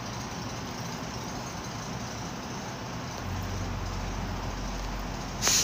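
Steady background noise, with a low steady hum joining about three seconds in and a brief hiss just before the end.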